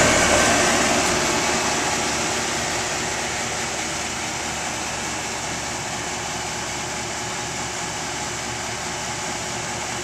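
A 3-ton Ruud air-conditioning condensing unit running: the compressor and condenser fan make a steady hum, loudest at first with the microphone right at the compressor and easing off over the first few seconds. The compressor is running normally under load.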